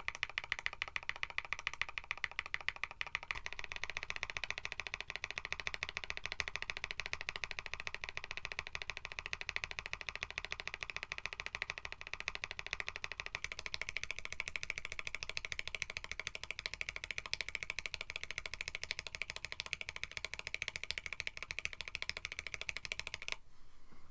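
Rapid, evenly repeated keystrokes on a KBD67 Lite mechanical keyboard with an FR4 plate. Lubed Banana Milk switches are heard first, lubed Boba LT switches from about three seconds in, and factory-lubed CJ switches from about halfway. The typing stops just before the end.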